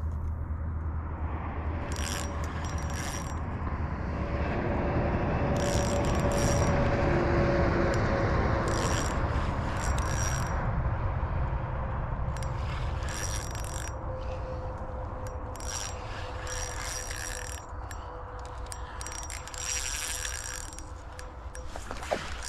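Ultralight fishing reel cranking and ratcheting in repeated spells as a hooked trout is played on light line.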